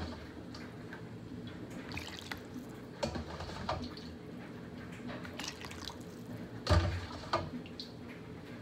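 Chicken broth being ladled from a pot into a plastic container: liquid dripping and splashing, with a few sharp knocks, the loudest about seven seconds in.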